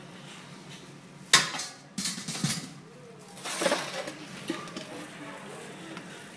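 Stainless steel ladle clinking and scraping against stainless steel bowls while scooping sweet corn kernels: a sharp clink a little over a second in, a few knocks a second later, then a scrape.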